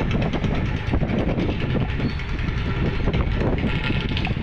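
Street traffic noise, a steady loud rumble with motorbikes passing.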